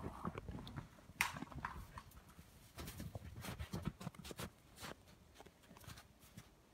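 Footsteps crunching and scuffing in deep snow at an uneven pace, with a few sharper knocks, the clearest about a second in.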